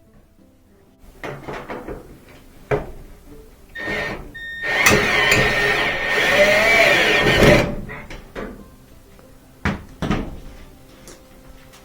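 Sheet-metal dryer cabinet panels being fitted back together: a few knocks and clanks, then about three seconds of loud metal scraping and rattling, and two more sharp knocks near the end.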